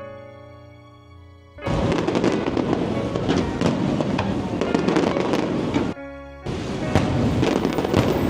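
Fireworks bursting in a dense run of crackles and pops that starts about one and a half seconds in, breaks off briefly near six seconds and resumes. Music plays underneath.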